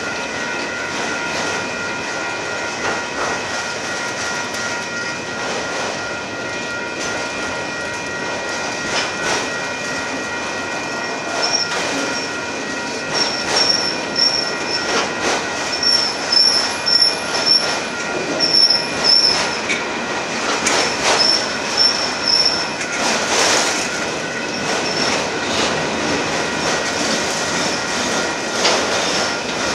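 Freight train's autorack cars rolling past, steel wheels squealing with steady high tones. A sharper, higher squeal comes and goes from about a third of the way in until about three quarters through, over irregular clacks of the wheels on the rails that grow louder in the middle.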